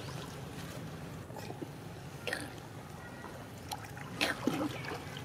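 Water splashing and lapping as several macaques swim in a pond, with a few sharper splashes about two seconds and four seconds in.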